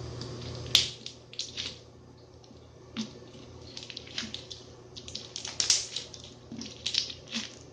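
Crunchy slime being squeezed and pressed by hand, giving irregular crackling and popping bursts with wet squishing between them. The sharpest crackle comes just under a second in, and a cluster of crackles comes about five to seven seconds in.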